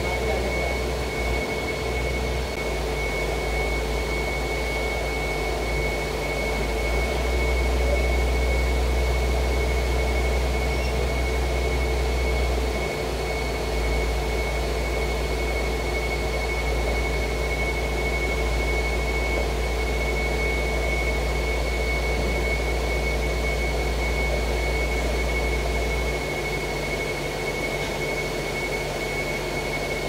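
Heavy diesel engine of the crane rig running steadily, a low rumble with a steady high whine over it. The rumble swells for a few seconds from about seven seconds in and eases near the end. No hammer blows are heard.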